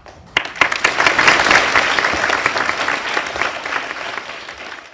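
An audience of schoolchildren applauding. The clapping starts just after the beginning, is loudest in the first couple of seconds, then gradually thins out and fades.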